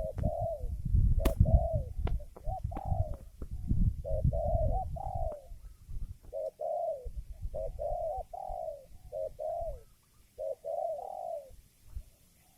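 Spotted dove (tekukur) cooing, a string of rounded coo notes in repeated phrases that stop near the end. Under the cooing is a low rumbling noise that fades out about ten seconds in, and there is a sharp click about a second in.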